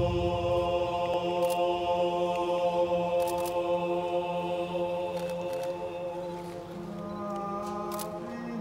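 A stage chorus of many voices holding one long, steady chord, then moving to a new chord about seven seconds in. A few faint clicks sound over it.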